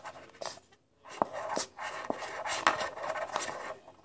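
A nearly empty plastic lotion bottle being squeezed and folded over in the hands to force the last lotion out, the plastic crinkling with a few sharp clicks.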